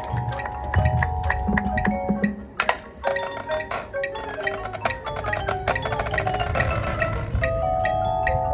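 Music with quick, regular percussion hits and held tones. It thins out briefly about three seconds in, then carries on.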